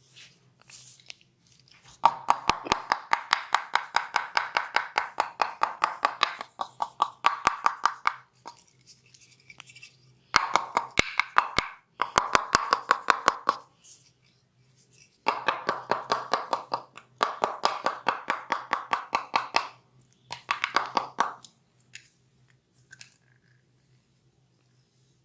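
Hands striking the body in fast, even percussive massage strokes (tapotement), in runs of a few seconds with short pauses between.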